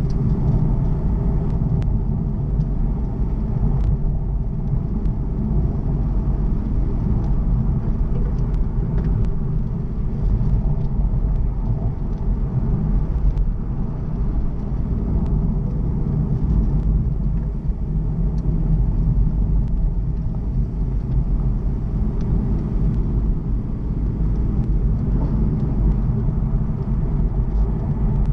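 Car driving along a mountain road, heard from inside the cabin: a steady, low rumble of engine and tyre noise.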